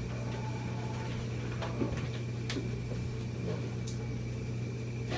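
A steady low hum, with a few faint short knocks and rustles from a towel being handled.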